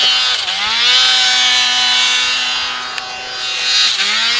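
Turbocharged Polaris 900 RMK snowmobile's two-stroke engine revving hard under load in deep powder. The pitch dips and climbs back about half a second in, holds high, then sags and rises again near the end.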